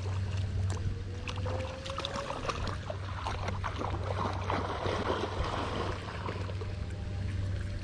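Strong wind buffeting the microphone in a steady low rumble, over water lapping and splashing, with many small scattered clicks.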